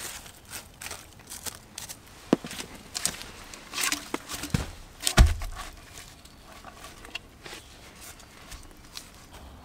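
Stick scratching and stirring through a bed of dry campfire ash, then a heavy log set down into the ash with two dull thuds about four and a half and five seconds in, followed by light rustling.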